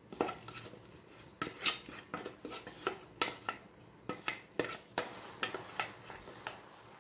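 A utensil clinking and knocking against a stainless steel pot as cooked basmati rice is spooned in, in irregular sharp taps, about a dozen of them.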